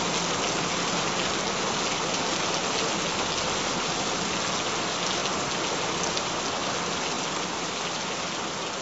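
Steady rain falling, a dense even hiss with faint scattered drop ticks, slowly getting quieter in the second half as it fades out.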